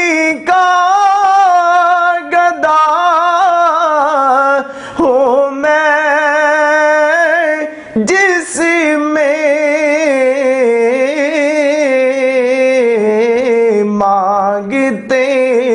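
A man singing an Urdu naat, drawing out long melismatic notes with a wavering vibrato between the lines of the verse, with short breaks for breath about 5 and 8 seconds in.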